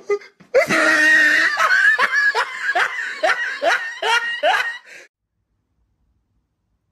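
A person laughing hard in a run of short rising 'ha' sounds, about two or three a second, which cuts off abruptly to silence about five seconds in.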